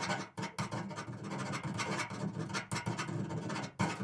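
Stylus writing on a tablet screen: short scratching strokes with brief gaps between them, as numbers are written one after another.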